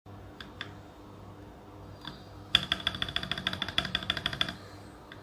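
Plastic PBT keycaps clicking on a mechanical keyboard: a few single clicks, then a quick run of clicks, about ten a second, for about two seconds.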